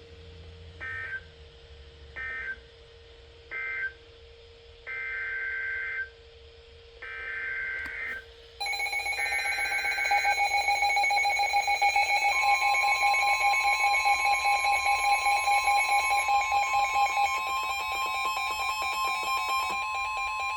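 Emergency Alert System signal on weather radio. First come three short warbling data bursts about a second apart, the end-of-message code closing the previous warning. Then three longer data bursts, the header of a new alert, and a loud, steady two-tone attention signal that starts about nine seconds in, with a further steady tone joining it a few seconds later.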